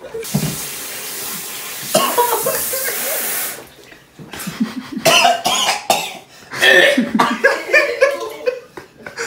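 A man coughing and gagging, close to retching. A steady rushing hiss fills the first three and a half seconds.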